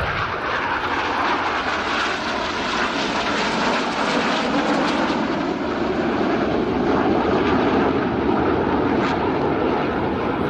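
BAE Hawk T1 jets of the Red Arrows flying past with a loud, steady jet roar. The roar slides lower in pitch over the middle seconds as the jets go by.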